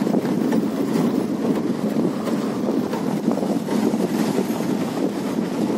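Safari jeep driving along a dirt forest track: a steady rumble of engine and tyres on the rough ground.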